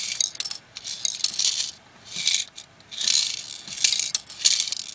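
Small loose LEGO pieces rattling and clicking inside the hand-turned plastic drum of a LEGO City cement mixer and dropping out down its chute, in two main bursts with a short lull around the middle.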